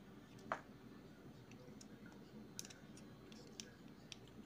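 Faint, scattered clicks of a plastic transforming robot toy being handled and its parts turned in the hands, the sharpest about half a second in.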